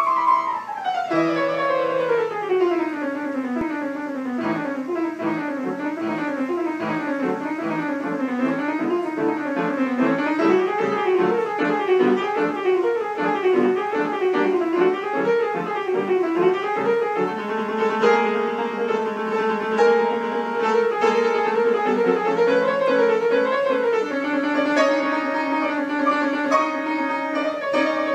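Instrumental music in a piano-like timbre. It opens with a falling run of notes, continues with fast rising and falling arpeggios, and from about two-thirds of the way through changes to longer held notes.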